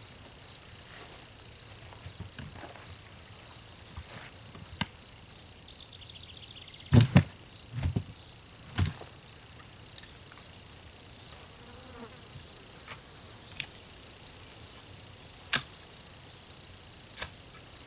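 Scattered sharp metallic knocks and clacks, the loudest a pair about seven seconds in, as a frozen AR-15's charging handle and bolt are forced back against a bench. A steady chorus of insects chirrs behind them.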